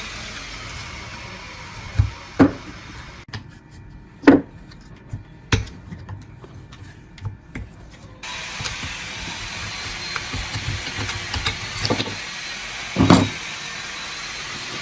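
Hand tools at work: a few separate sharp knocks and scrapes, loudest about four seconds in and again near the end, over a steady hiss that drops out for several seconds in the middle.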